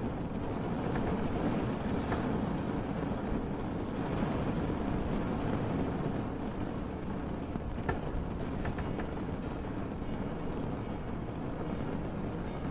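Steady low rumble of a boat under way, engine and water together, with a few faint scattered ticks.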